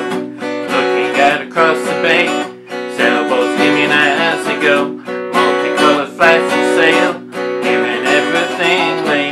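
Acoustic guitar strummed in a steady rhythm, with a man's voice singing over it.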